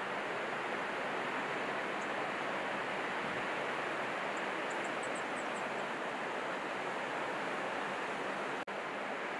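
Steady rushing noise of surf and wind, with a few faint high chirps around the middle. The sound drops out for an instant near the end.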